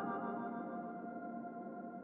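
Ambient outro music fading out: a held chord of several steady tones slowly dying away.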